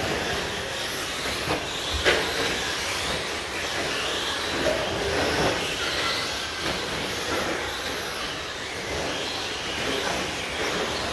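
Several radio-controlled short course trucks racing on the track: a steady mixed whir of motors and tyres, with a sharp knock about two seconds in.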